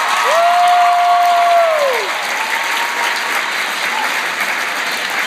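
Concert audience applauding. For about the first two seconds a single long, high cheer rises above the clapping, holds steady, then slides down in pitch.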